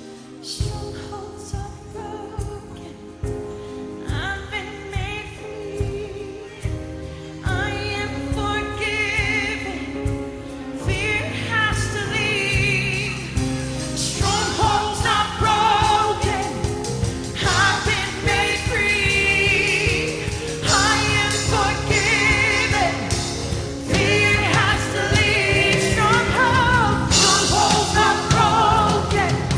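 Live gospel worship music: a band with bass, keys and drums backing singers who carry a wavering, melismatic melody over sustained chords, growing steadily louder and fuller through the passage.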